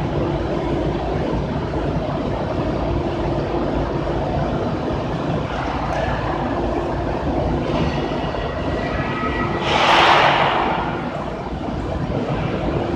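Sawdust charcoal making machine running: a steady low mechanical rumble with a faint steady hum, and a brief loud hiss about ten seconds in.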